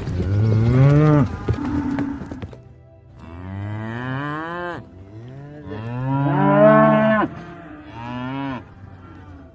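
Cattle mooing: about five drawn-out moos one after another, each bending up and falling away at the end, the first one the loudest.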